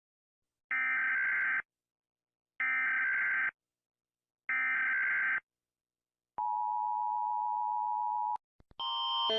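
Emergency Alert System signal: three one-second bursts of the screeching digital header data tones, a second apart, then a steady two-tone attention signal for about two seconds. Near the end a louder alarm of alternating stepped tones starts and grows louder.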